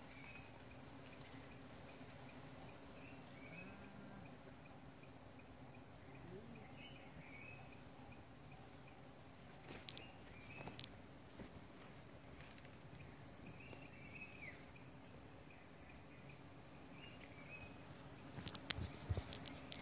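Faint steady shrill of forest insects, with a higher-pitched call swelling and fading every few seconds. A few sharp clicks come about halfway through and again near the end.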